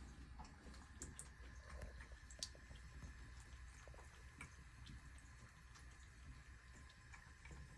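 Faint, scattered small clicks and wet ticks of a cat lapping water, over a low steady hum.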